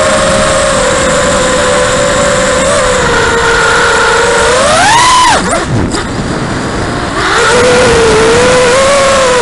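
Racing quadcopter's four Xnova 2204 2300kv brushless motors spinning HQ 5040 triblade props, whining steadily, picked up by the camera on the frame. About halfway the whine climbs sharply in pitch as the throttle is punched, then falls away and goes quieter for about two seconds as the throttle is cut. The steady whine then comes back.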